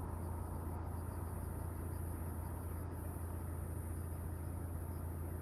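Distant jet airliner taking off far down the runway, heard as a steady low rumble, with a steady high hiss over it.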